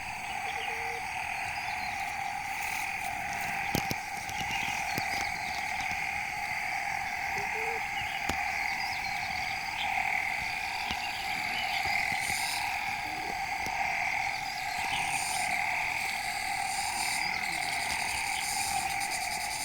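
A dense chorus of frogs calling steadily without pause, with a couple of sharp clicks in the first half.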